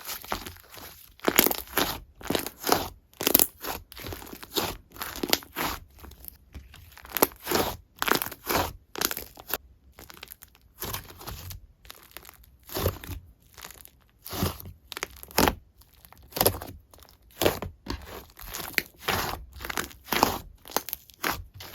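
Slime being pressed and squeezed by hand, a steady run of short crackly squishes and pops, about one to two a second.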